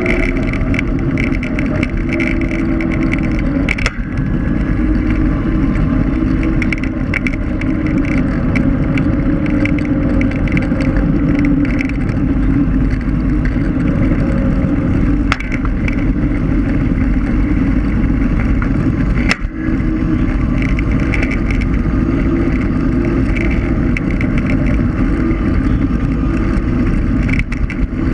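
Seated electric scooter riding along a paved path: a steady motor whine that drifts slightly in pitch over tyre rumble and wind noise on the microphone. A few sharp knocks break in.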